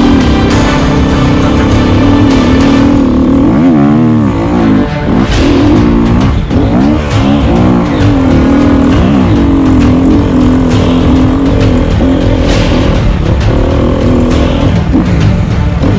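Enduro dirt bike engine revving hard, its pitch rising and falling over and over as the throttle is worked.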